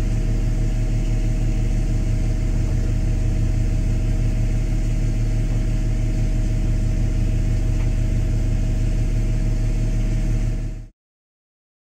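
Steady low machinery hum of a Halifax-class frigate, with several constant tones under a noisy rush; it cuts off about eleven seconds in.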